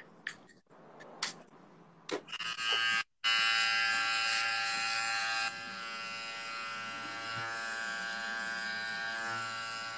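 T-blade electric hair trimmer buzzing steadily as it edges a beard, starting after a few light clicks about two seconds in, and dropping a little in level about halfway through.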